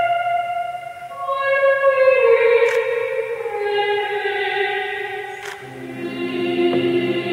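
A teenage girl singing solo, holding long notes in a slow phrase that steps downward in pitch. Low keyboard notes come in under her voice about two-thirds of the way through.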